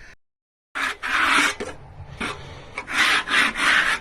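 Dead silence for a moment, then a series of short rasping, brushing strokes against wood, each lasting under half a second, irregularly spaced.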